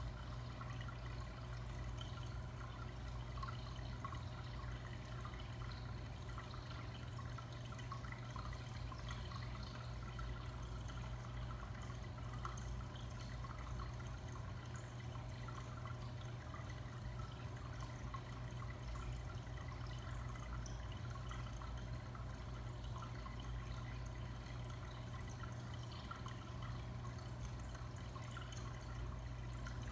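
Aquarium water trickling and dripping steadily over a low, steady hum.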